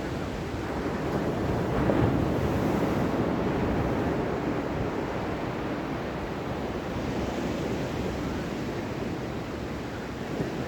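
Ocean waves washing in as a continuous surf noise, swelling about two seconds in and then slowly subsiding.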